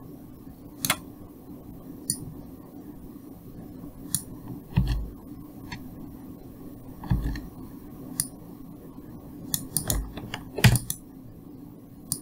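Computer mouse clicks and keyboard key presses, a scattered series of sharp clicks, with a few dull thumps among them, over a low steady hum.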